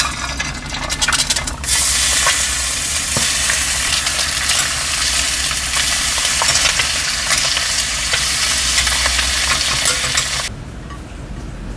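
Ham slices and a fried egg sizzling and crackling in a rectangular stainless-steel frying pan, with metal tongs clicking against the pan as the ham is turned. The sizzle swells about two seconds in and drops off suddenly near the end.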